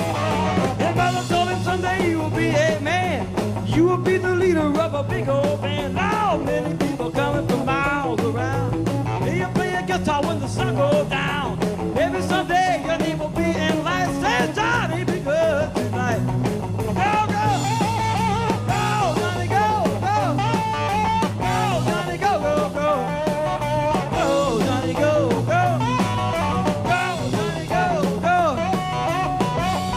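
Live electric blues-rock from a guitar, bass and drums trio: electric guitar with bending, wavering notes over a steady electric bass line and drums, with a man singing.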